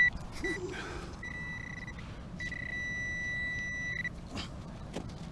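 Metal detector sounding a target signal: two short beeps, then a longer tone and a steady tone of almost two seconds, all at the same high pitch.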